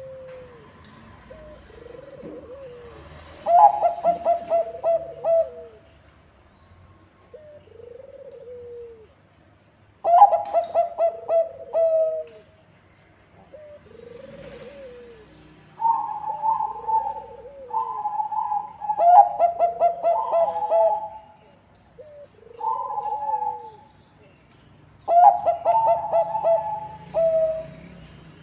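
Bangkok-bred perkutut (zebra doves) singing: bursts of rapid staccato cooing notes, coming every several seconds, that run at two overlapping pitches in the middle. Softer single arched coos fall between the bursts.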